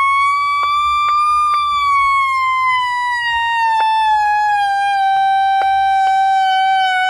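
Radio Shack weather radio's electronic alert siren sounding continuously after its alert lock is switched on. A single loud tone with many overtones rises slowly for the first second and a half, then slowly sinks in pitch. About ten sharp clicks sound over it.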